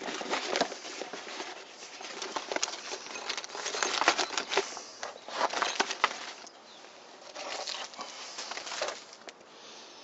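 Rustling of a nylon backpack being handled and stuffed with gear, with many short clicks and knocks as items go into the pocket, busiest in the middle and quieter over the last few seconds.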